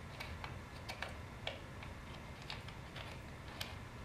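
Faint, irregular small clicks and ticks, a few a second, as a camera mount plate is turned by hand and screwed onto the base of a Vicon Vero camera.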